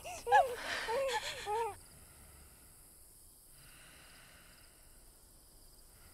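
A baby crying in short wailing cries that cut off abruptly less than two seconds in. After that there is near silence with only faint, thin high tones.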